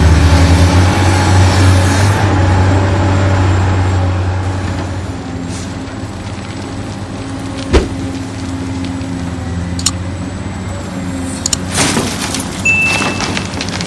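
Small electric motors and gears of a remote-control toy excavator and dump truck running with a steady hum, louder for the first few seconds and then quieter. Several sharp clicks and knocks come later, with a brief high beep near the end.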